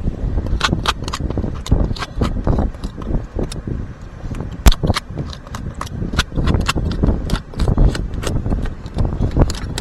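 Irregular sharp clicks and knocks, two or three a second, over a low rumble.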